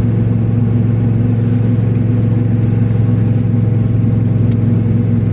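Car driving at a steady speed, heard from inside the cabin: a steady low engine and road hum.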